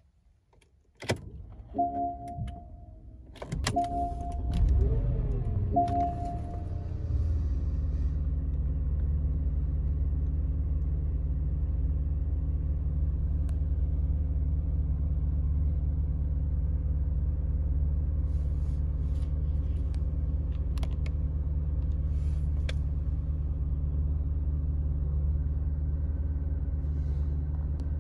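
2012 Porsche Cayenne S heard from the cabin on a cold start: a dashboard chime sounds, then the 4.8-litre V8 cranks and fires about four seconds in, flares up in revs and comes back down. From about seven seconds it settles into a steady cold idle.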